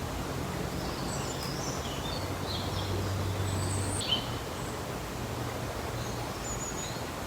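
Outdoor ambience: small birds chirping briefly now and then over a steady background of noise and a low hum.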